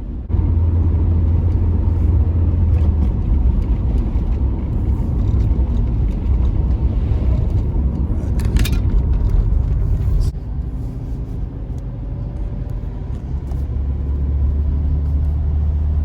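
A car's engine and road noise heard from inside the cabin while driving: a steady low drone that eases off about ten seconds in and builds again near the end. There is a short, sharp click about eight and a half seconds in.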